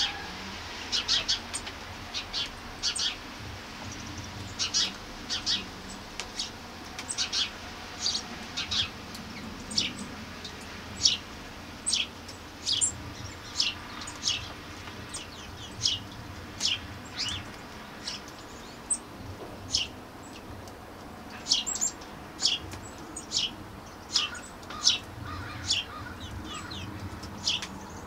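Birds chirping: short, high chirps that repeat about once or twice a second throughout, over a faint steady background hush.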